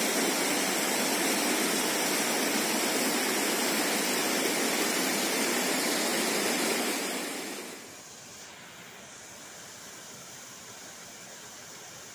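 Steady rush of a fast-flowing river current. It drops suddenly to a much fainter rush about eight seconds in.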